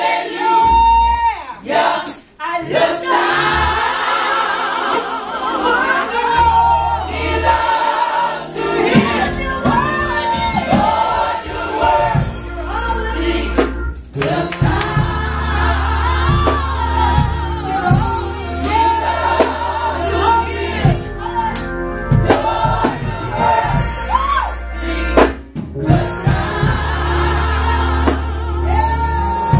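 Gospel choir singing with band accompaniment, a lead voice over the choir and a steady bass line coming in a few seconds in.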